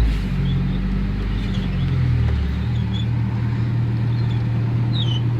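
Gas push mower's small engine running steadily, its pitch easing down slightly about two seconds in and then holding, with short high chirps over it.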